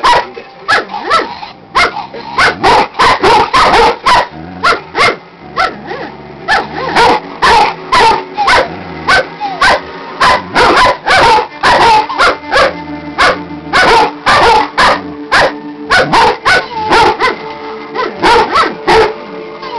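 A dog barking rapidly and insistently, about two sharp barks a second without a break, with music playing underneath.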